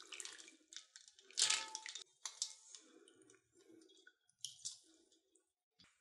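Water splashing and dripping as wet, boiled spinach is handled by hand: irregular short wet sounds, the loudest about one and a half seconds in.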